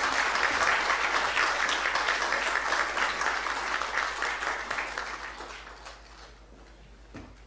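Audience applauding, the clapping dying away about five to six seconds in.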